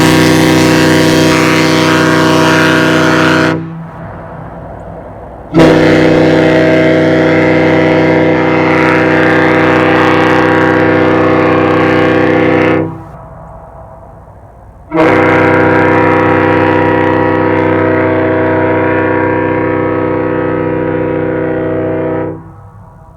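Kahlenberg T4 bronze ship horn with three bells sounding a deep chord of several steady tones in long blasts. One blast is already sounding and ends about three and a half seconds in; two more follow, each about seven seconds long, with short gaps between them.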